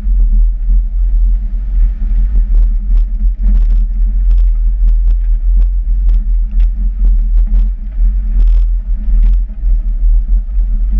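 A car driving slowly, heard through a camera fixed to the car: a heavy, steady low rumble of engine and road noise, with scattered sharp clicks and knocks.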